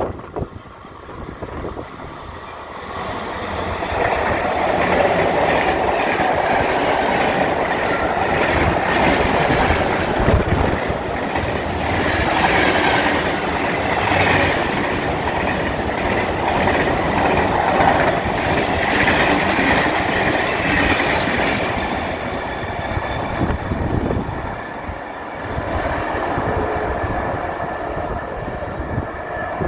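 A Medway container freight train passing close by on the station track. Its sound builds over the first few seconds as the train arrives, then stays loud and steady as the long line of container wagons rolls past, easing off a little near the end.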